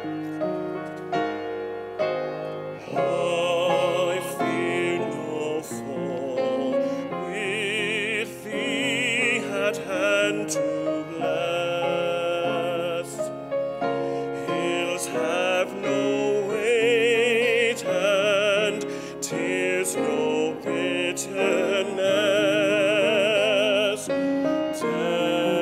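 Solo male voice singing in a classical style with wide vibrato, accompanied by piano.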